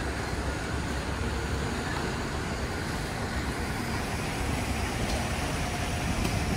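Steady outdoor city background noise: a low rumble under an even hiss, with no distinct events.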